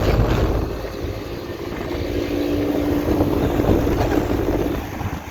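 ICP central air-conditioner condensing unit running: its Copeland scroll compressor gives a steady hum under the rushing of the condenser fan.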